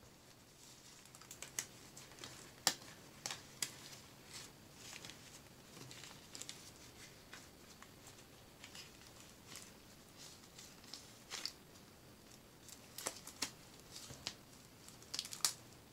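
A thin white disposable rubber glove being stretched and pulled onto a hand: irregular small snaps, clicks and rubbery rustles. The sharpest snaps come about three seconds in and near the end.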